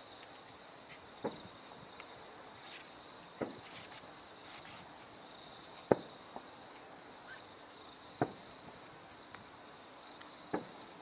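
Distant fireworks shells bursting: five sharp bangs about two seconds apart, the loudest near the middle. Under them runs a steady chorus of insects chirping.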